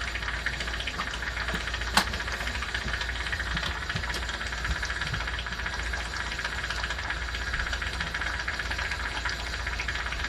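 Steady hissing with a low hum underneath, and one sharp click about two seconds in.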